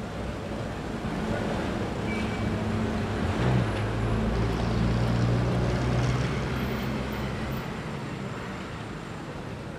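Street traffic: a motor vehicle's engine drone builds up about three seconds in and fades away again as it passes.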